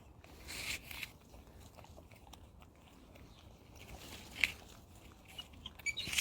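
A monkey biting and chewing crunchy food: a few short, faint crunches.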